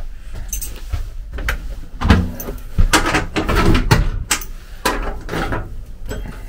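Clatter and a dozen or so sharp knocks as a door is opened and handled.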